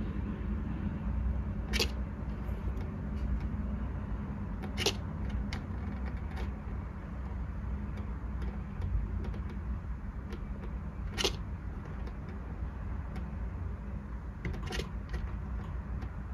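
Small bell on a cat's collar tinkling briefly a few times, spread out, as the resting cat shifts its head, over a steady low background rumble.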